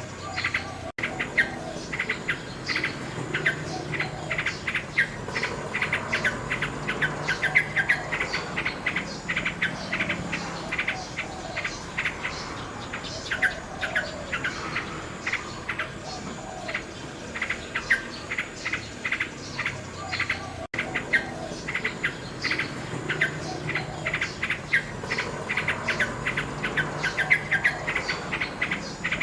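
Common nightingale singing in rapid runs of repeated notes, over a steady chirring of insects.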